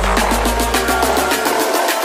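Background electronic music with a fast, even run of drum hits, its bass fading out over the two seconds.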